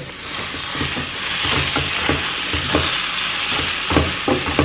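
Chicken pieces in thick masala stir-fried with a spatula in a non-stick pan: a steady sizzle of frying, with irregular knocks and scrapes of the spatula against the pan several times a second.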